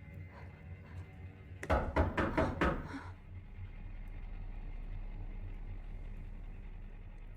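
Loud pounding on a door: a rapid run of about five heavy knocks about two seconds in. A low steady drone of film score follows.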